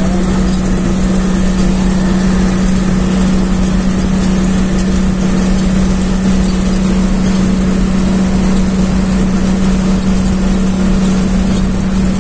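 Bus engine running steadily with a constant low drone and road noise, heard from inside the driver's cab while driving.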